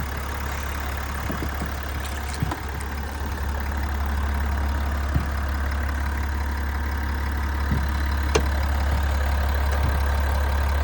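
Vehicle engine idling steadily with a low rumble, growing slightly louder partway through, and a single sharp click about eight seconds in.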